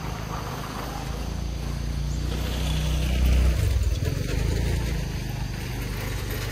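A motor vehicle passing with a low engine hum that swells to its loudest about three and a half seconds in, then eases off.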